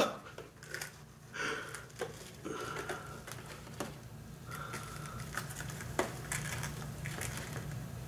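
Handling noise from unpacking live plants: packing tissue paper rustling and crinkling, with light clicks and taps against a clear plastic tub as moss-wrapped bromeliads are lifted and set down. A steady low hum runs underneath.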